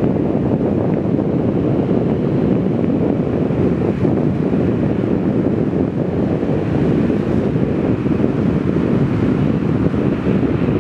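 Wind buffeting the microphone: a steady, loud low rushing noise that neither rises nor falls.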